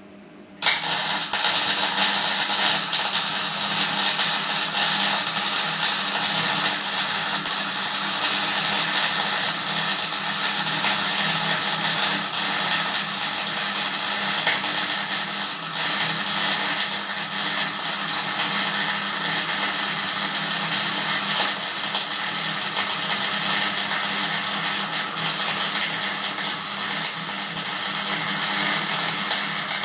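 Electric welding arc burning steadily through one long weld bead, a continuous crackling hiss that strikes up suddenly about half a second in.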